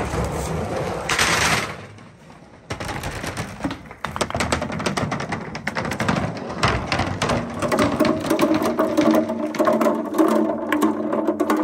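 Large glass crystal balls rolling and clattering down a perforated-board marble-run slope in a dense run of rapid knocks. Near the end a steady ringing comes in as the balls drop into a glass fishbowl of water.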